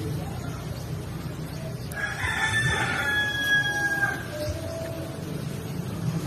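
A rooster crowing once, one drawn-out crow of about two seconds starting about two seconds in, over a steady low hum.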